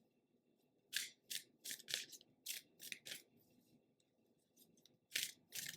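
Tarot cards shuffled by hand: a run of quick papery swishes, two or three a second, which pauses midway and picks up again near the end.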